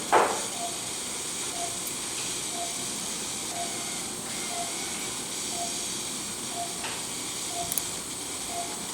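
Operating-room patient monitor beeping, about one short beep a second, the pulse tone of the anaesthetised patient, over a steady hiss. A short loud sound comes right at the start.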